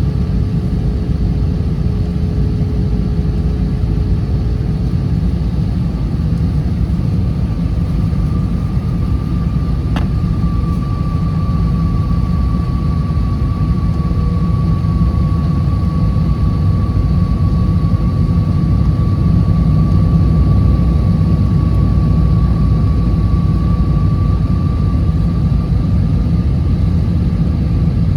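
Steady low rumble of an airliner's engines heard inside the passenger cabin, with a faint steady whine over it. A single click sounds about ten seconds in.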